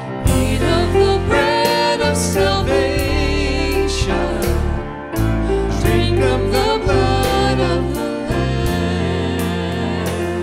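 A woman sings a slow communion hymn solo, accompanied by a Yamaha grand piano.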